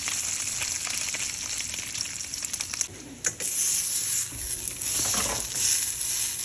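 Food sizzling in a hot frying pan, with a sharp click about halfway through and the sizzle growing louder after it.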